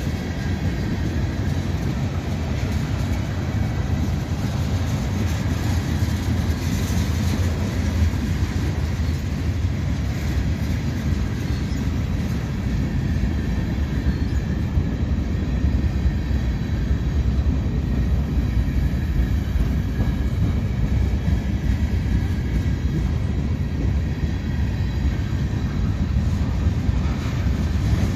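Mixed freight train rolling past on the near track: a steady rumble of steel wheels on rail as tank cars, covered hoppers, boxcars and gondolas go by.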